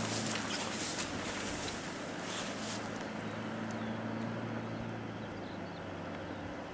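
Off-road vehicle engine running steadily, a faint even hum with no revving.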